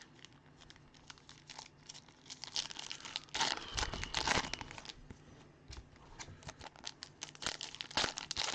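Baseball card pack wrappers being torn open and crinkled, with many short clicks and a longer burst of rustling a few seconds in.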